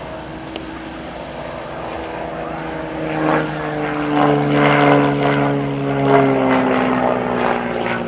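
Aviat Pitts S-2C aerobatic biplane's engine and propeller, growing louder about three seconds in, its pitch falling slowly as it passes.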